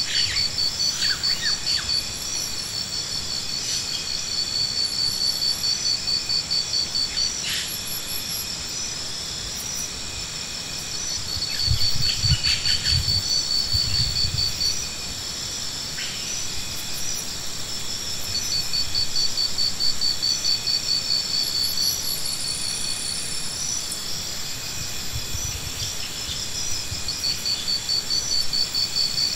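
Insects chirping in repeated trains of rapid, high-pitched pulses, each train lasting a second or more, with a steady high drone under them. A few low thumps come about twelve seconds in.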